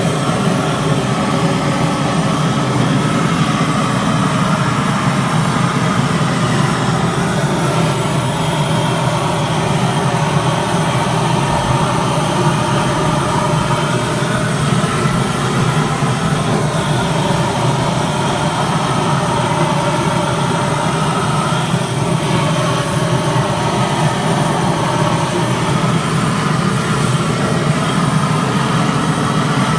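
GrillGun propane torch blasting a steady, loud flame into charcoal, a constant rushing roar that holds without letup.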